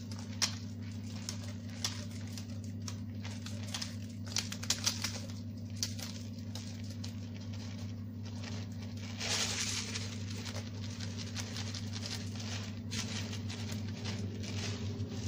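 Sunflower seeds being sprinkled and pressed onto egg-washed burger buns: scattered light pattering and small clicks, with a rustle about nine seconds in, over a steady low hum.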